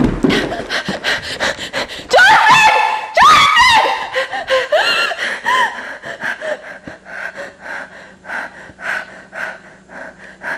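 A person panting hard and fast in panic, with two loud, high-pitched rising cries about two and three seconds in, then quicker, softer ragged breathing.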